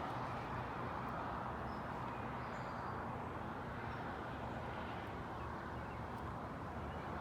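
Steady outdoor background rush on a hilltop, with a few faint, short, high bird chirps.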